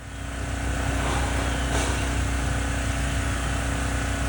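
A steady engine-like rumble: a constant low hum with a wash of noise over it, building up during the first second and then holding steady.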